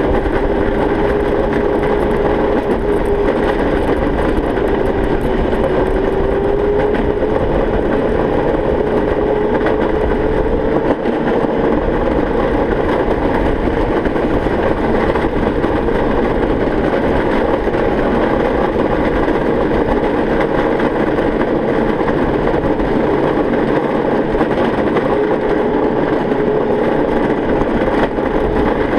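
Razor go-kart's electric drive motor whining steadily under way, its pitch drifting slightly with speed, over a continuous rumble of small tyres on a concrete street.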